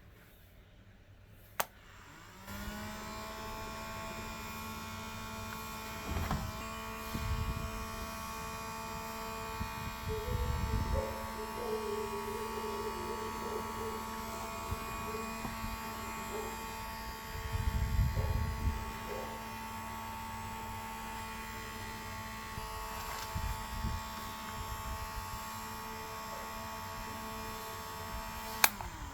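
Small DC motor of a homemade battery-powered fan switched on with a click, spinning up into a steady humming whine. A few low rumbles break in partway through, and another click near the end stops it.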